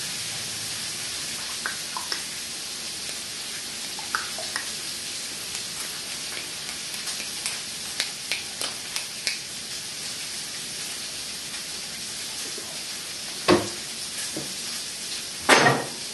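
Bacon sizzling in a frying pan, a steady high hiss, with a few light clicks around the middle and two louder knocks near the end.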